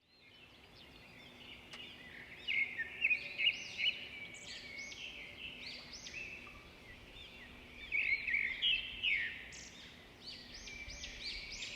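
Many small cage birds chirping and twittering together in a dense, overlapping chorus. The calls are loudest about two to four seconds in and again about eight to nine seconds in.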